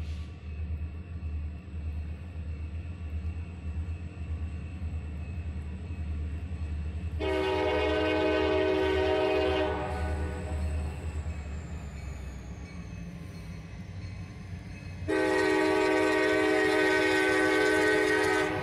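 Locomotive air horn sounding two long blasts for a grade crossing as the train approaches. The first blast comes about seven seconds in and lasts about two and a half seconds. The second, louder one starts about fifteen seconds in and holds for about three and a half seconds. Both sound over a steady low rumble from the oncoming train.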